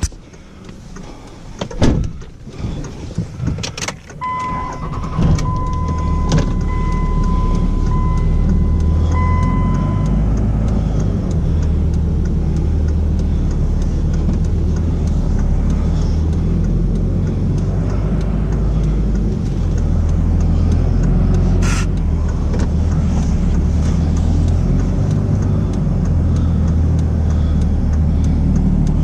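A pickup truck's engine and road noise running steadily after a couple of knocks early on. A repeating warning chime sounds for several seconds, a second or so into the rumble.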